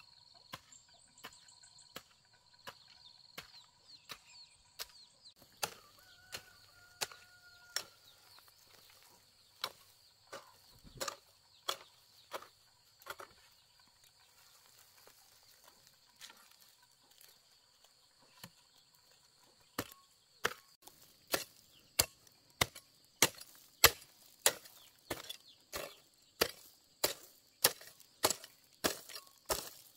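Hoe blade chopping into dry soil and weed roots, one sharp strike at a time. The strokes are sparse and uneven at first, then about two-thirds in they become a steady, louder run of about two a second.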